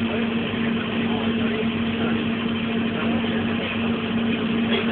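Welding machine running with a steady hum under an even, dense crackle.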